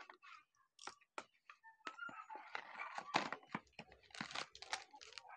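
A cardboard box being opened by hand: a few sharp clicks, then cardboard scraping and rustling as the inner tray is slid out of its printed sleeve.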